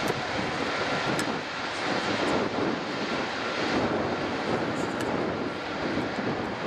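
Airbus A330-243 airliner's Rolls-Royce Trent 700 turbofans running at taxi power as it rolls along the taxiway: a steady, even jet rumble and rush.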